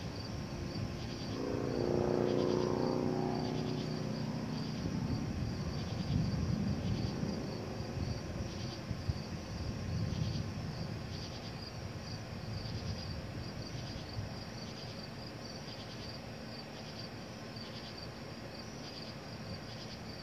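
Crickets chirping steadily. A low rumble of distant thunder swells and fades over the first half, with a brief humming tone about two seconds in.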